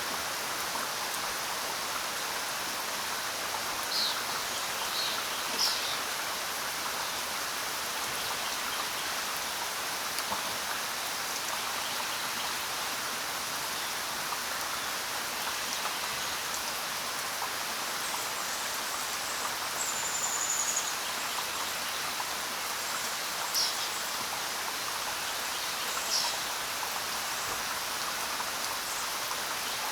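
Steady rain falling, with a few short high bird chirps scattered through it and one brief high whistle around the middle.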